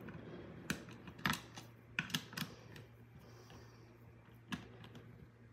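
A T-wrench turning the bar nut of a mini electric chainsaw, tightening the bar back down after the chain has been tensioned. It gives a handful of light clicks and taps, several in the first half and one more near the end.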